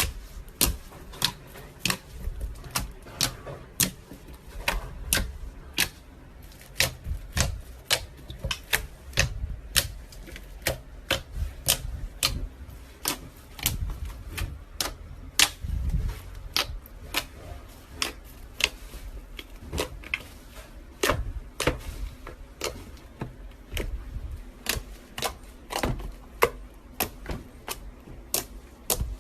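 Slime being squeezed and pressed by hand, giving irregular sharp clicks and pops, about two a second.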